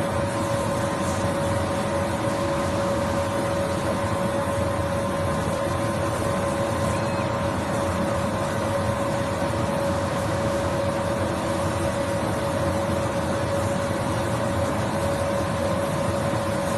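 Laser cutting machine running as its head cuts around printed patches on fabric: a steady mechanical whir with a constant hum.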